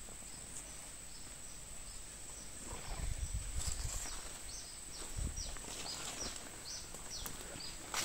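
Footsteps rustling through leaf litter in forest undergrowth, loudest about three and five seconds in. Over them runs a series of short, high, falling chirps, about three a second, and a steady high insect whine.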